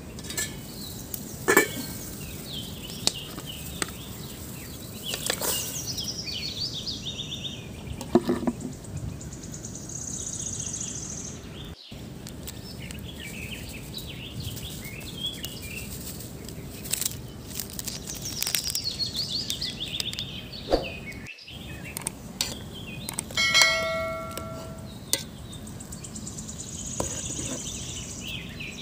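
Aluminium cooking pot and lid clinking and knocking now and then, with one ringing metallic clang about two-thirds of the way through, over birds chirping.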